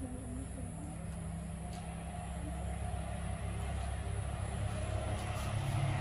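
A motor running with a steady low hum that grows gradually louder.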